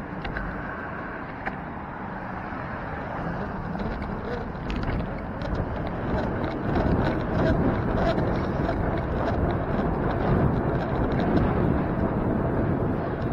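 Wind buffeting the microphone of a bicycle-mounted camera over a steady road rumble, growing louder about halfway through, with faint light rattling clicks.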